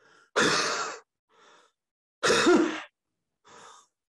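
A man panting heavily, acting out exhaustion after running: two loud, breathy gasps about two seconds apart, each followed by a fainter breath.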